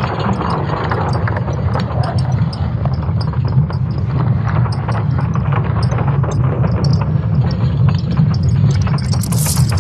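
ESA space-weather sonification, data from solar cosmic-ray particles striking Earth turned into audio: a steady low hum with dense crackling and scattered clicks over it. A brief, brighter hiss comes in near the end.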